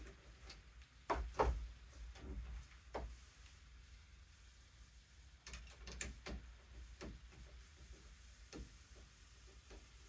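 Screwdriver turning the mounting screws of a stainless steel door knob: scattered light metal clicks and small knocks as the tip works the screw and the knob hardware shifts, loudest in a cluster about a second in and again around six seconds.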